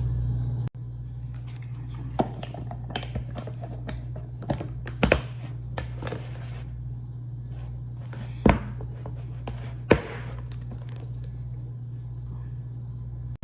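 Scattered thumps and light knocks, the loudest about 5, 8½ and 10 seconds in, over a steady low hum in a small room.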